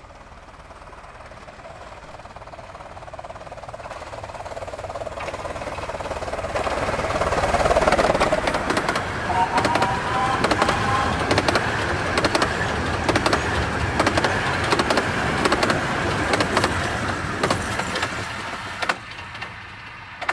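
A 15-inch gauge miniature steam train approaching and passing at speed. It builds up over several seconds to its loudest about eight seconds in, then gives a dense, rapid clatter as the locomotive and carriages go by, and fades near the end.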